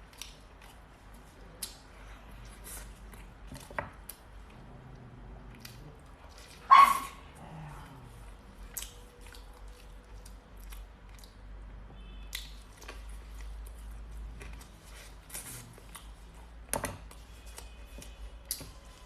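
Close-up eating sounds: scattered wet chewing clicks and lip smacks, with one sudden, much louder short sound about seven seconds in.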